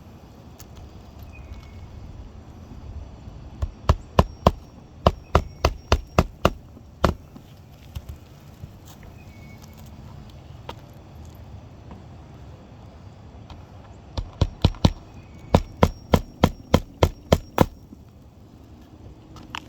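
Hammer blows in two runs of about a dozen sharp strikes each, roughly three a second, with a pause of several seconds between them.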